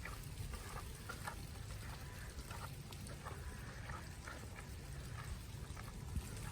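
Outdoor ambience in wet snow: a steady low rumble with faint, irregular wet ticks and patters.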